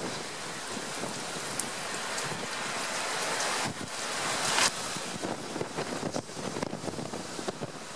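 Storm wind and driving rain in a cold-front squall, with gusts buffeting the microphone. A stronger surge of wind comes about four seconds in.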